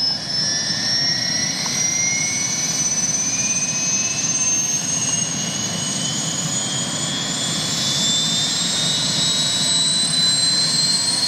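Helicopter running, its turbine whine climbing slowly and steadily in pitch over a constant rushing engine noise.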